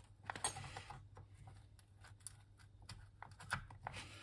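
Small irregular clicks and taps of a 50-pin to 40-pin connector adapter being handled and pushed into place on an 8-inch floppy drive's connector, over a faint steady low hum.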